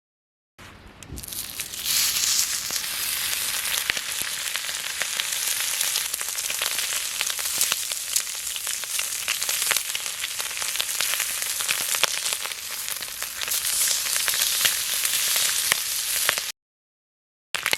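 Bacon and egg frying in a pan, a steady sizzle with many small pops. It fades in about half a second in, cuts off suddenly about a second before the end, and starts again right after.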